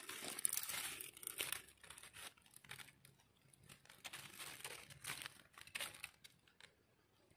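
Soft crinkling of dry leaf litter and light scraping as a small knife trims the stem of a freshly picked bolete mushroom. The sounds are denser in the first couple of seconds, then thin to faint scattered rustles and ticks.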